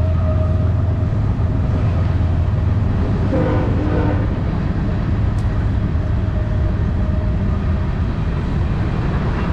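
Wind buffeting the microphone: a loud, steady low rumble. A brief pitched sound is heard about three and a half seconds in.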